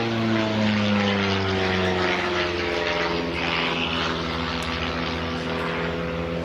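Propeller airplane flying past, its engine drone dropping in pitch over the first couple of seconds as it passes, then holding a steady, slightly fading drone.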